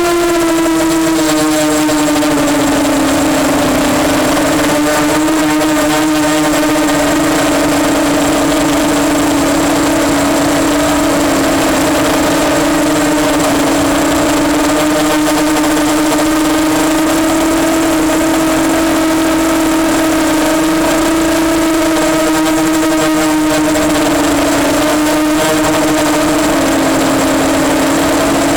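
EMax Nighthawk 250 quadcopter's motors and propellers whining steadily in flight. The pitch drops over the first few seconds, then holds level with small wavers as the throttle is eased and adjusted.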